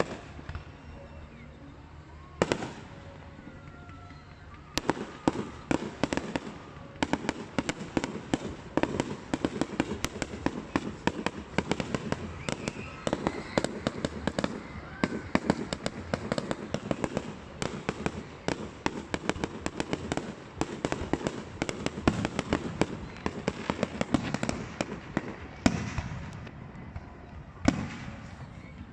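Aerial fireworks display: a rapid, continuous crackling and banging of bursting shells. It is sparse for the first couple of seconds, then dense, and thins briefly near the end.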